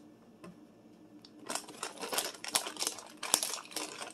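Plastic bag of dried cranberries crinkling as it is handled and opened, a run of sharp crackles starting about a second and a half in and stopping near the end.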